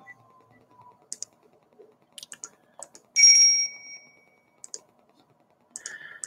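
Scattered light clicks of computer keys or a mouse, and about three seconds in a single bright ding that rings briefly and fades.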